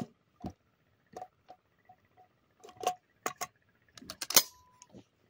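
A string of sharp, irregular mechanical clicks and light knocks from handling a 12-gauge shotgun and its red dot sight, the loudest a little over four seconds in.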